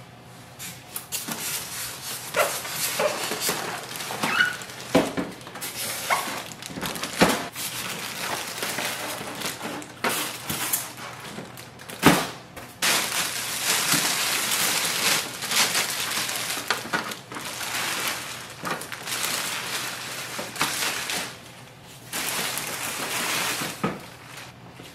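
Polystyrene foam packing blocks squeaking and scraping as they are pulled off a laser printer, with a few sharp knocks as the foam is handled. Later, a large plastic bag crinkles and rustles as it is pulled off the printer.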